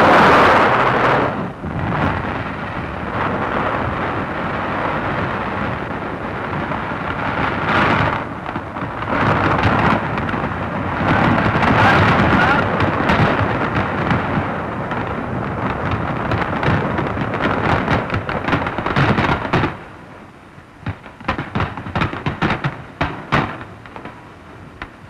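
Massive underwater rock-demolition explosion, some 1,375 tons of explosive lifting the channel's rock and water skyward. A sudden blast gives way to a long rumbling roar of erupting water and debris lasting about twenty seconds, which then drops off to scattered crackles.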